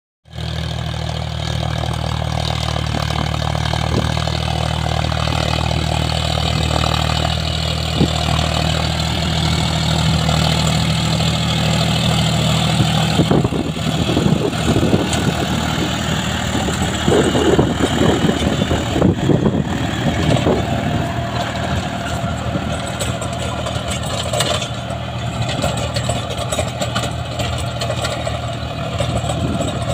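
John Deere 5045 D tractor's diesel engine running steadily under load while it pulls a rotavator tilling the soil. About halfway through, the even engine hum becomes rougher and more uneven.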